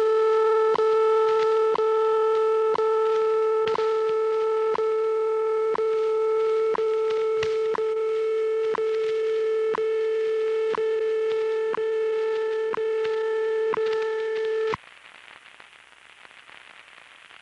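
WWV shortwave time-signal broadcast heard on a portable shortwave radio: a steady audio tone with a tick every second. About fifteen seconds in, tone and ticks cut off abruptly, leaving faint static.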